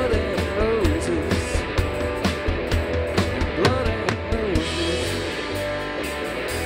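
A live rock band playing: electric guitar, electric bass and drum kit, with a lead line of bent notes near the start and again a little past the middle. The cymbals get brighter and busier for the last couple of seconds.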